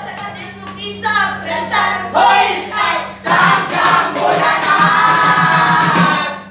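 A group of performers singing together in chorus, ending on a long held note that cuts off near the end.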